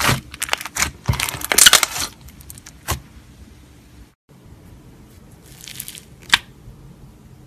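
Slime being squeezed and pressed, giving dense crackling and popping in the first two seconds, then a click. After a brief dropout comes a softer squish and one sharp click.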